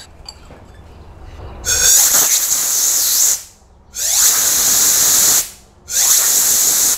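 Compressed-air blow gun blowing across the top of a glass straw standing in a glass of liquid: three hissing blasts, each about a second and a half long with a slight whistle, starting and stopping abruptly with short gaps between. It is a demonstration of the suction that draws fuel up into a carburetor's airstream.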